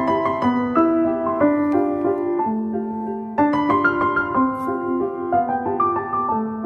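Background piano music: a slow melody of held notes over lower chords.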